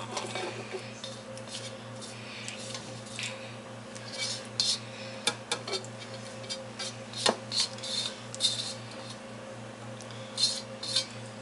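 Metal kitchen tongs clinking and scraping against a wok and bowl while serving stir-fried rice noodles, in scattered irregular clicks. A steady low hum runs underneath.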